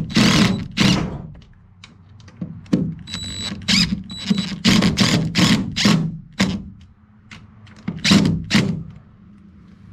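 Power driver run in repeated short bursts, driving screws to fasten a drain plug fitting into a boat hull.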